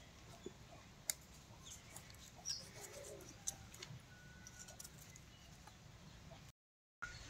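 Faint, scattered light clicks and taps, with faint hen clucking. The sound cuts out completely for about half a second near the end.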